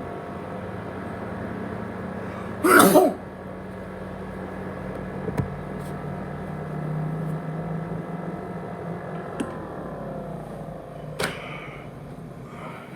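An ASUS X543UA laptop with a USB hard drive attached, running with a steady whirring hum made of several fixed tones; the tones shift slightly about nine and a half seconds in. A loud, short burst of noise comes about three seconds in, with a few faint clicks later.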